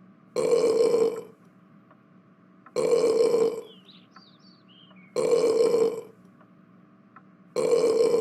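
The same burp sound played over and over, four times, each a loud belch of under a second, evenly spaced about two and a half seconds apart.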